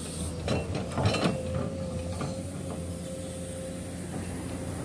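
Crawler excavator's diesel engine running steadily under load with a constant whine, as its bucket digs into and scoops up earth; a few short scrapes and knocks come around the first second.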